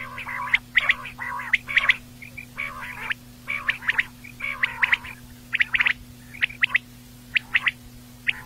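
Quail calling: repeated clusters of short, sharp chirping notes with brief pauses between them and a longer pause near the end, over a faint steady hum.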